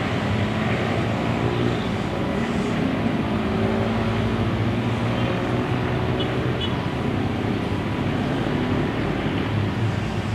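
Distant twin-engine jet airliner on final approach to landing, a steady engine roar with a low wavering hum and no sudden change.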